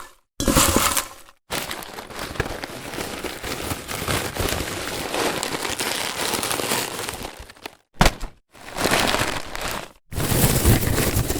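A run of separate short sound effects: a long dense crackling noise full of small pops and clicks, then several short crunching bursts with brief silences between them.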